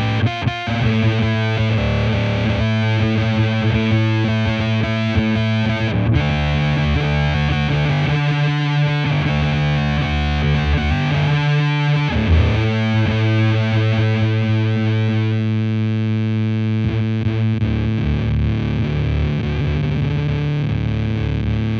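Electric guitar played through the Devi Ever Big Distortion Sound Machine fuzz pedal, with both of its fuzz sides combined, into a miked valve combo amp. Heavily fuzzed chords and notes are held and sustained, changing every few seconds.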